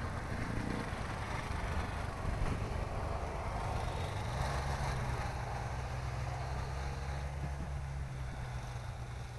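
A vehicle engine running steadily, a low hum that grows stronger about four seconds in, under an even outdoor noise.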